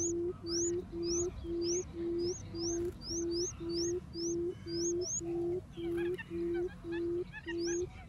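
Barred buttonquail's lure call: an even series of short, low hoots at about two a second, the booming advertising call of the female. A high rising chirp repeats over the hoots and drops out for a couple of seconds near the end, when faint small chirps come in.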